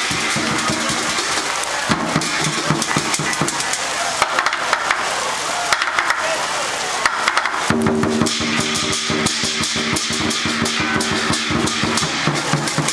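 Lion dance band playing: a large Chinese drum beaten in rapid strokes with clashing hand cymbals and a gong.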